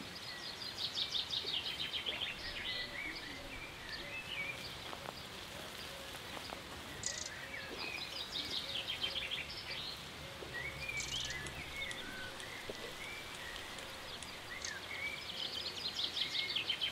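Small songbirds singing over a steady background hiss: a rapid trilled phrase heard three times, at the start, about halfway through and near the end, with short chirps between.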